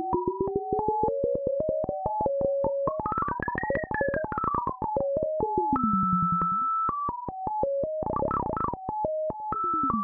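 Meng Qi Wing Pinger synthesizer, its pinged resonant filters playing a stepped sequence of pitches held to a pentatonic scale by step modulation, over a fast train of clicking pings. A second tone glides up and back down through the middle, and a brief noisy, chaotic burst comes near the end.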